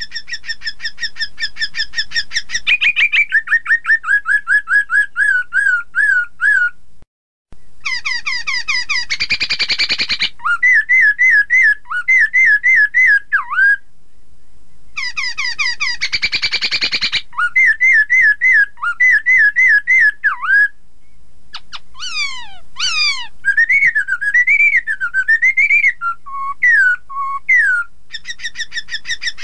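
Black-throated laughingthrush (poksay) singing loudly: fast runs of whistled notes, about four or five a second, broken twice by louder, rougher bursts. A brief pause comes about a quarter of the way in, and there are quick sweeping notes later on.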